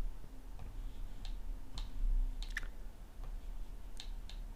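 A few faint, scattered clicks and taps, spaced irregularly about half a second to a second apart.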